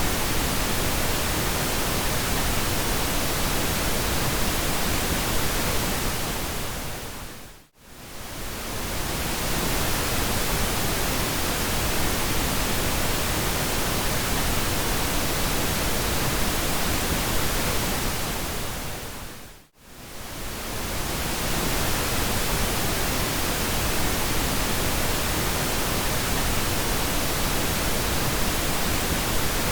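Continuous pink noise, a steady even hiss. Twice, about eight and about twenty seconds in, it fades away to near silence for a moment and swells back.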